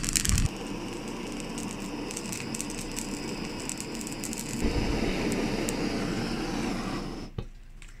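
Plumbing blowtorch flame running steadily against a red pepper, charring and blistering its skin. The flame gets louder about halfway through and stops about seven seconds in.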